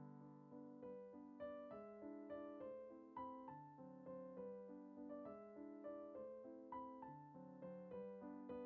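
Soft background piano music, notes picked out one after another at an even, unhurried pace.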